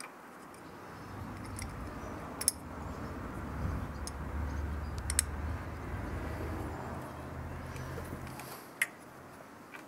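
A few sharp metallic clicks from hose, clamp and engine parts being handled, three of them standing out, over a low rumble that swells after about a second and fades near the end.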